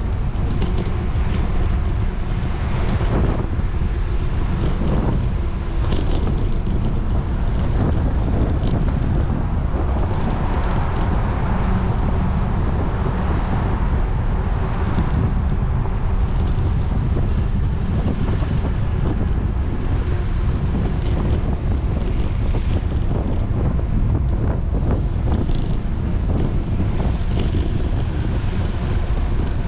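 Wind rushing over a moving microphone, a steady low rumble, with road traffic faintly beneath it.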